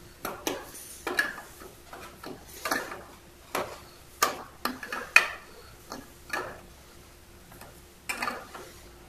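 Ratcheting box-end wrench clicking in short bursts, about a second apart, as it turns a plastic 1/8-inch pipe-thread fitting into a tapped hole in a plywood box.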